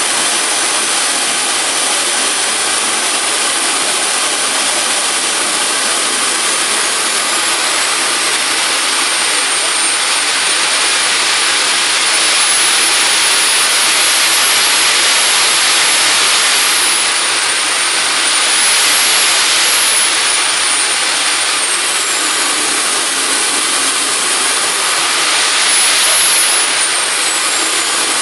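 AMT gas turbine jet engine of about 45 lb thrust running loudly, a rushing hiss with a high-pitched whine on top. The whine climbs as the turbine spools up about a quarter of the way in, then drops and climbs back twice as the throttle is worked.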